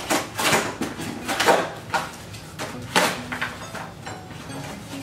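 Cardboard toy packaging being handled and pulled open by hand: irregular scraping and rustling noises, the loudest about a second and a half in and again near three seconds.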